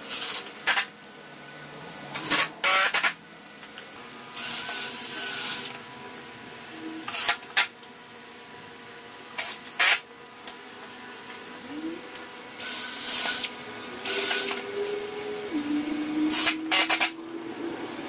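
Cordless Ryobi driver running in short bursts and a few longer runs of about a second, driving long wood screws into pine 2x4s.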